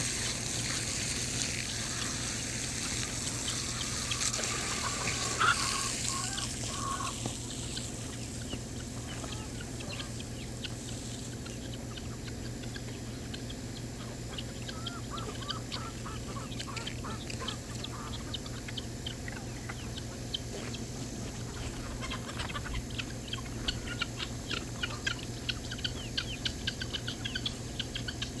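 A mixed poultry flock calling: ducks and other fowl, with many quick high peeps that come thicker near the end. A steady low hum runs underneath.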